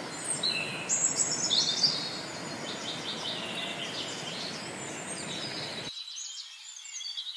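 Shallow mountain stream rushing over rocks, with birds chirping and whistling above it. The water noise cuts off suddenly about six seconds in, while the birdsong goes on.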